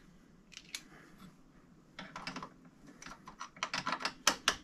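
Hand socket ratchet clicking in short runs as a bolt on the ATV engine case is turned: a few clicks about a second in, then quicker, denser runs through the second half, loudest near the end.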